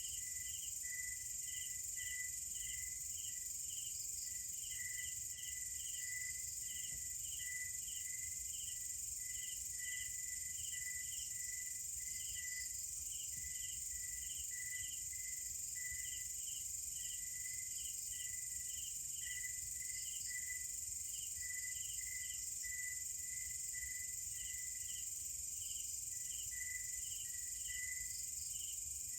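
Night chorus of crickets and other insects: a steady, high-pitched drone with layers of short, regular chirps repeating about two to three times a second.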